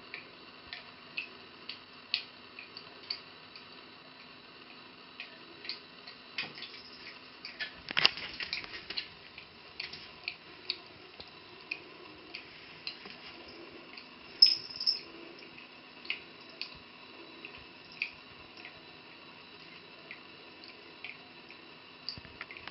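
Cold tap of a bathroom sink running a thin stream into the basin, with irregular drips and small splashes as kittens paw at the water. The loudest moments come about eight and fourteen seconds in.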